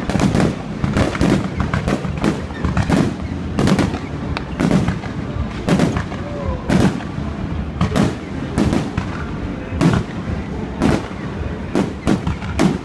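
Aerial fireworks bursting in a continuous barrage: sharp booms and cracks come one or two a second, with smaller crackles between them.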